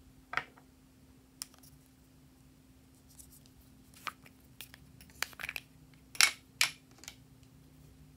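Small plastic containers being handled and opened: a scattered series of sharp plastic clicks and taps, the two loudest close together about six seconds in.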